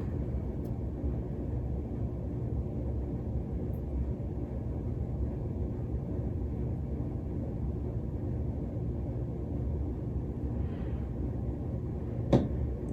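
A steady low rumble of background noise, with one sharp click near the end.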